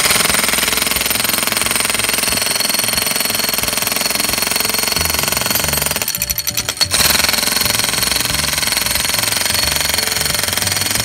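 1940s Black & Decker electric hammer running, its chisel bit hammering rapidly into a concrete paving stone. About six seconds in it briefly stops and sputters, then starts hammering again.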